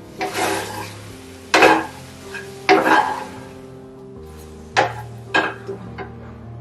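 Fried broccoli florets dropped into a hot saucy frying pan and tossed with a spatula: a sizzle and several sharp knocks and scrapes of the spatula against the pan.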